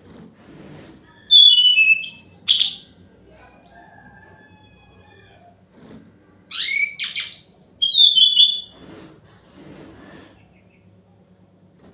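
Sikatan rimba dada coklat (SRDC) jungle flycatcher singing: two loud phrases of quick, high, clear whistled notes stepping downward, the first starting about a second in and the second about six and a half seconds in.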